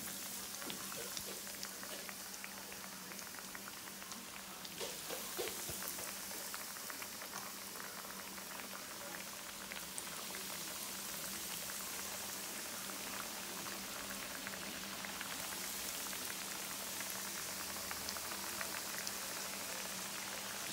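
Coated fish pieces shallow-frying in hot oil in a skillet: a steady dense sizzle full of fine crackles, with a few sharper pops or knocks about five seconds in.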